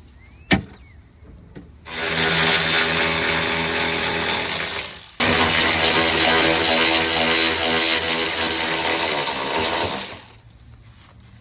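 A click, then a handheld power tool's motor running hard in two long runs, about three and then five seconds, with a brief break between, as it spins out the bolts and nuts that hold the window regulator in the door.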